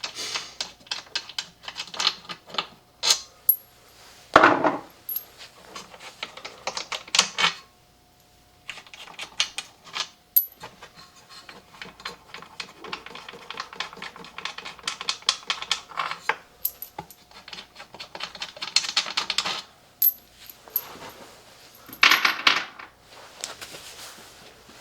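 Irregular clicks, clinks and rattles of small hard parts and tools being handled, with a few short rasping noises in between.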